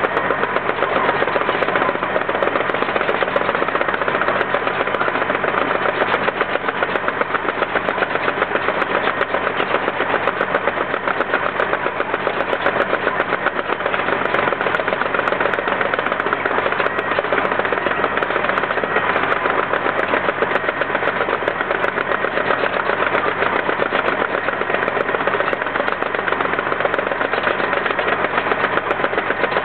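Landini 6830 tractor's diesel engine running steadily under load as it pulls a vineyard subsoiler through the soil, with a fast, even pulsing.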